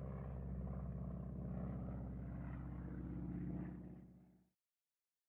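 Aircraft passing overhead, a steady engine drone that fades out about four and a half seconds in.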